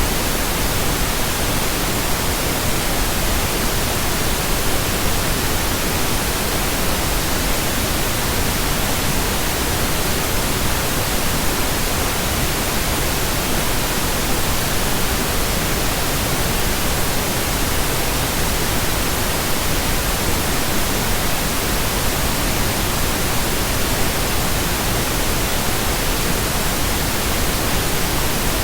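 Steady synthetic pink noise: an even, unchanging hiss across the whole range, generated as an audio track.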